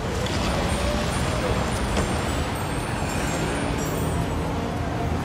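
City street ambience: steady traffic noise with indistinct voices of passers-by.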